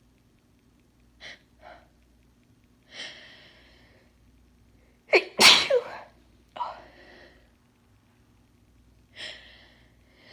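A woman sneezing. A couple of short breaths and a gasping intake build to one loud sneeze about five seconds in, followed by heavy breaths, then another gasping build-up near the end that leads into the next sneeze.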